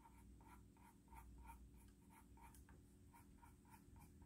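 Faint scratching of a graphite pencil on paper: quick, short, repeated strokes, about five a second, sketching in the hair of a horse's mane.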